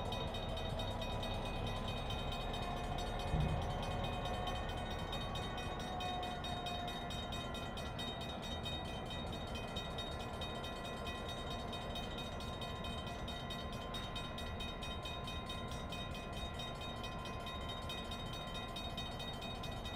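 GP9 diesel-electric locomotive running steadily as it moves slowly with a string of tank cars in tow. Its engine is an EMD 16-cylinder 567. A single short knock comes about three and a half seconds in.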